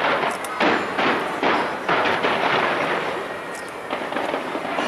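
Large fireworks display going off in a rapid string of bangs, several sharp reports close together in the first two and a half seconds, then a denser crackle near the end.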